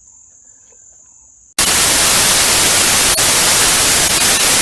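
Steady high chirring of crickets, cut off about a second and a half in by a sudden, very loud burst of white-noise static, like a TV static transition effect.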